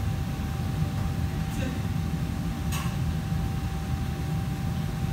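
Kitchen room tone: a steady low machinery hum with a faint constant whine, and two short sharp noises around the middle.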